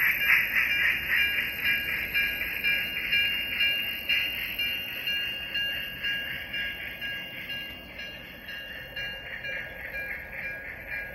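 Model steam locomotive's bell ringing in a quick even beat as the train moves slowly. The beat fades in the middle and comes back near the end.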